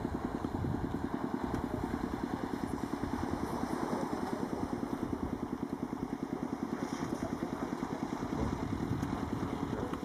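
An engine running steadily with an even chugging pulse, about eight beats a second.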